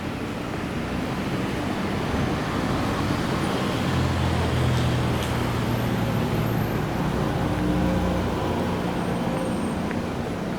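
Road traffic on a city street, with one motor vehicle passing close by: its low engine hum swells about four seconds in and fades after about eight seconds.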